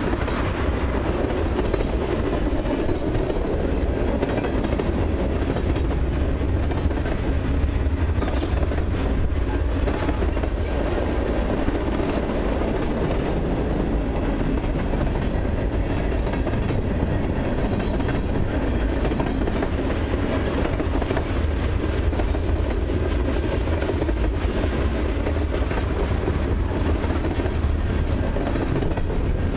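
Freight cars of a long mixed freight train (tank cars, gondolas and covered hoppers) rolling steadily past: a continuous low rumble of steel wheels on rail, with light clicking as the wheels cross the track joints.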